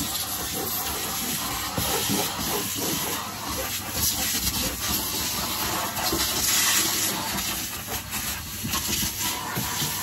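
Henry tub vacuum cleaner running, with a steady rushing hiss of suction through its hose and nozzle that swells and dips as the nozzle is worked over the van's carpet.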